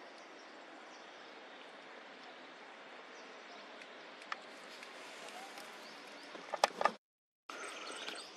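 Steady outdoor background noise, faint and even, with a quick cluster of sharp clicks or snaps near the end. The sound then drops out completely for a moment before a similar background resumes.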